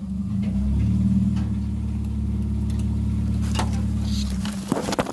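Car engine running steadily as the car pushes through dense brush, heard from inside the cabin; its deepest hum drops away a little over four seconds in. Branches scrape and snap against the body a few times near the end.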